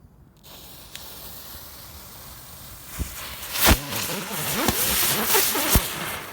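A small firework burning: a steady hiss that turns into a louder spraying hiss with sharp pops and crackles from about three seconds in, fading near the end.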